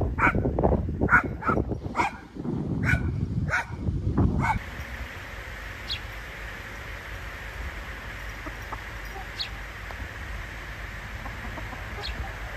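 A dog barking in a quick series of short barks for the first four or five seconds, mixed with low rushing noise. After that only a faint steady outdoor background with a few faint high bird chirps.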